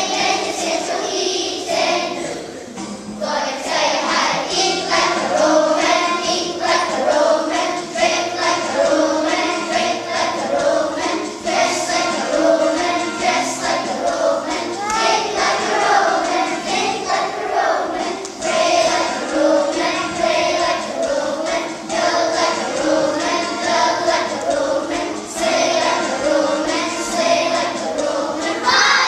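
A group of young schoolchildren singing a song together over an instrumental backing with a stepping bass line.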